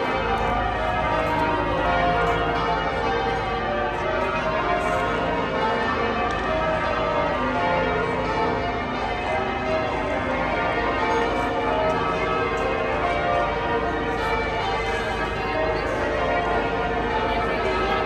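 The ring of twelve bells in St Paul's Cathedral's north-west tower, change ringing: a continuous run of many overlapping bell strokes.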